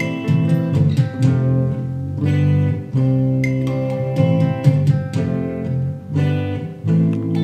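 Guitar music, strummed and picked with sustained low notes, with no singing or howling.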